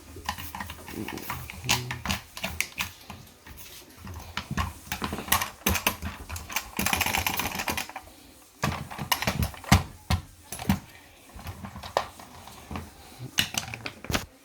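Irregular clicks and knocks from a pneumatic nail gun being handled and cleaned, with a hiss lasting about a second around the middle.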